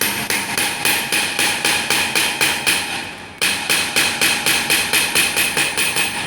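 Punch machine striking gold in a fast, even run of sharp metallic taps, about four a second, stamping the dragon-scale pattern. It breaks off for a moment about three and a half seconds in, then starts again.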